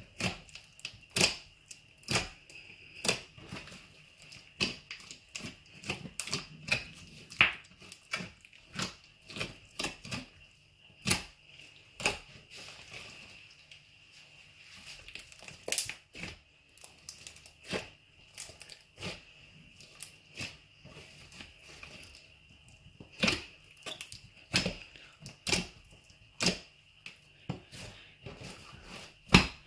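A large glittery slime with foam beads being kneaded and pressed by hand, giving irregular sharp sticky pops and clicks, about one or two a second, as air pockets in the slime burst.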